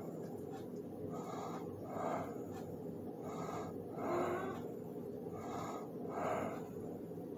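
Breathing close to the microphone, a breath in and a breath out about every two seconds, over a steady low hum.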